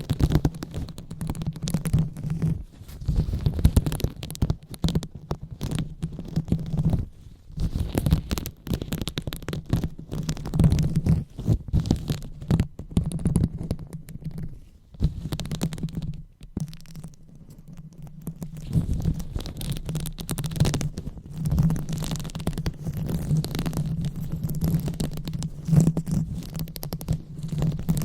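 ASMR microphone 'brain massage': hands rubbing and kneading directly on the microphone, making dense, irregular scratchy rustling with a deep rumble of handling noise. It eases off to a quieter stretch a little past the middle.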